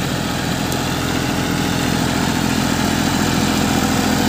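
Massey Ferguson 241 DI tractor's three-cylinder diesel engine running steadily, growing slightly louder toward the end.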